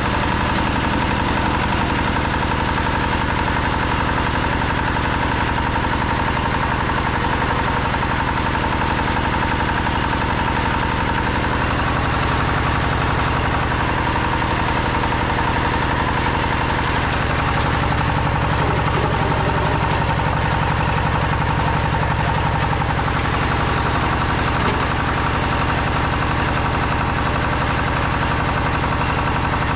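Small diesel engine with a big flywheel running steadily, belt-driving a flat-die pellet mill as feed mash is pressed into pellets, with a steady whine running along with it.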